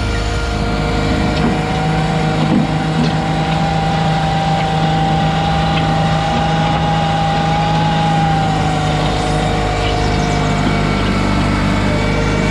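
Garden tractor engine running steadily under load as it drags a stoneboat sled, with a whine that climbs slightly and drops back after about eight seconds.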